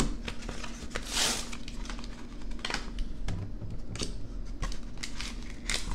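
Plastic blister pack of trading cards being worked open by hand: irregular crackles and clicks of the plastic, with a longer tearing rustle about a second in.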